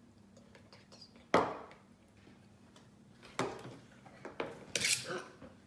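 A few sharp knocks and taps, the loudest about a second in and several more in the last two seconds, one with a short rustle.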